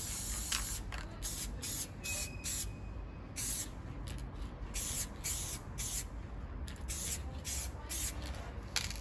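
Aerosol spray-paint can hissing in many short bursts, each under a second, as black paint is sprayed through a stencil.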